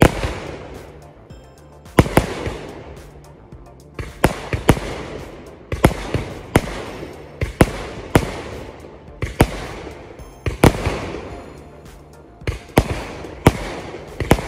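Multi-colour 120-shot repeater cake firing: a rapid string of heavy shots, often two or three in quick succession, each trailed by crackling as the shells burst. There are short lulls about a second in and again near the end.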